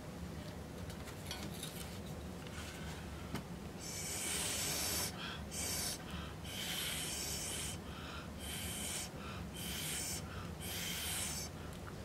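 Short puffs of breath blown through a thin straw at wet acrylic paint, about eight of them starting about four seconds in. Each is a breathy hiss, and some carry a faint whistle.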